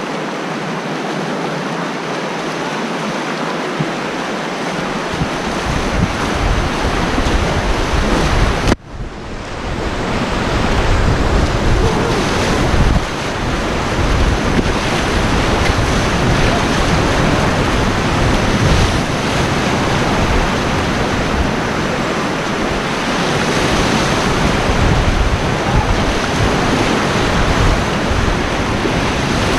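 Whitewater rapid rushing and crashing, with wind buffeting the microphone. About nine seconds in, the sound briefly drops out and goes muffled, then comes back.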